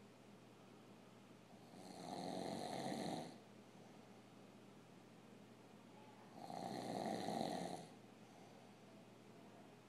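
Loud snoring: two long snores, each about a second and a half, a few seconds apart.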